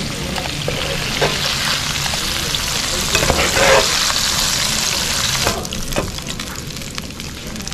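Coated chicken breast pieces frying in hot oil: a steady sizzle with a few clicks of a utensil in the pan. The sizzle drops noticeably about five and a half seconds in.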